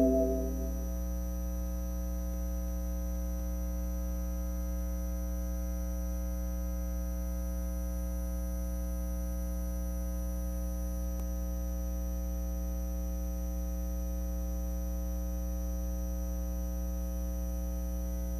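Steady electrical mains hum with a faint constant high whine, unchanging throughout. A keyboard chord fades out in the first second.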